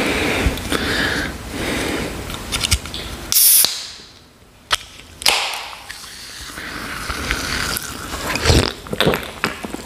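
A can of cola is cracked open: the tab clicks and a short, sharp hiss of escaping fizz comes about three and a half seconds in. Sips and swallows from the can follow near the end.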